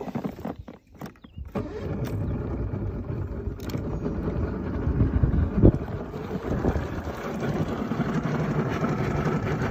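Mercury 135 outboard motor on a bass boat running under way, with water and wind noise, growing slowly louder. A few knocks come in the first second or so, before the steady run sets in.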